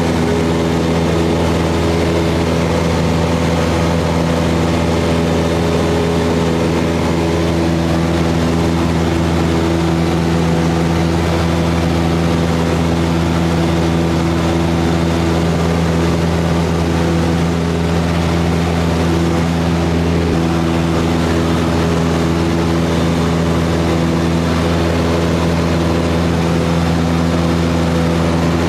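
Cessna 172's piston engine and propeller running steadily at an even pitch, heard from inside the cabin.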